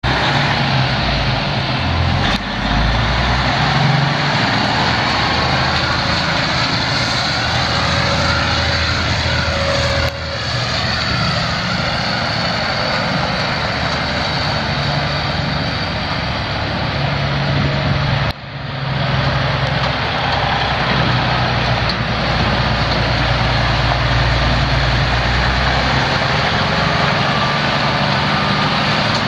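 Freightliner Coronado SD dump truck's Detroit Diesel 14.8-litre six-cylinder engine running steadily, with a loud even hiss over the low engine note. The sound breaks off abruptly and resumes about 2, 10 and 18 seconds in.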